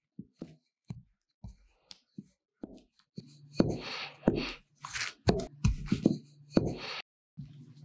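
Wooden rolling pin working a round of bread dough on a mat: a few light taps and clicks at first, then from about three seconds in a run of louder rolling strokes. A low steady hum runs under the strokes.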